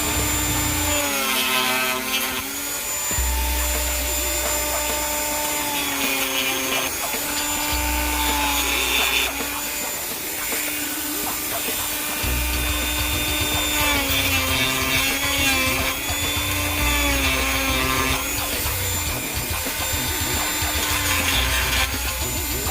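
Power grinder with an 80-grit disc grinding into a boat's fiberglass and gel coat, tapering out a damaged patch of nonskid. Its motor whine sags and recovers in pitch again and again as the disc bites and lifts.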